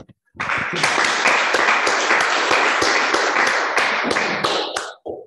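Audience applauding: many people clapping together, starting about half a second in and dying away near the end.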